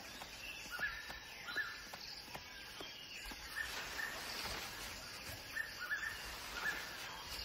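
Forest ambience: a bird giving short, repeated chirps every half second or so over a faint steady hiss, with a few faint clicks in the first few seconds.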